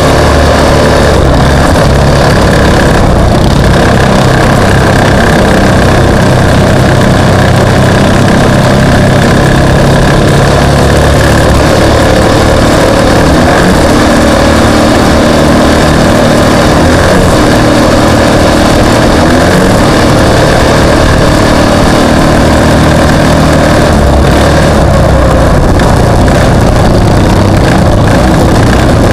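Off-road racing vehicle's engine running loud and continuous, its pitch shifting up and down as the throttle changes.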